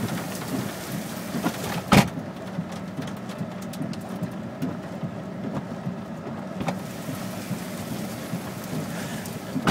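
Heavy rain and hail drumming on a car's roof and windshield, heard from inside the cabin as a dense, steady patter of small hits. One loud sharp knock comes about two seconds in, and a smaller one later.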